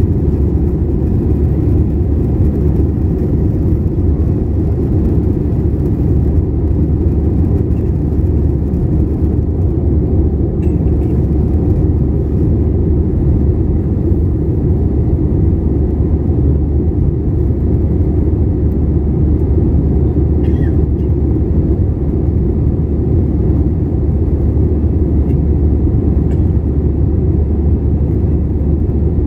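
Steady low roar inside the cabin of an Airbus A321 in flight, engine and airflow noise heard at a window seat.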